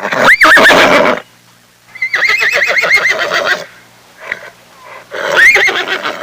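Horse whinnying three times: a short high squeal, then a longer neigh with a fast quavering pitch, then another short squeal near the end.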